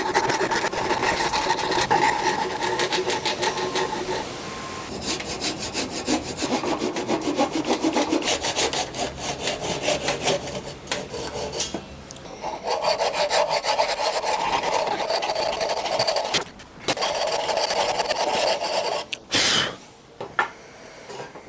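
Hand rasp filing a wooden tree-fork branch flat, in rapid scraping strokes with a couple of short pauses, stopping near the end.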